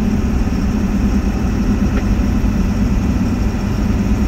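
Steady engine and road noise inside a truck's cab while driving, a constant low rumble.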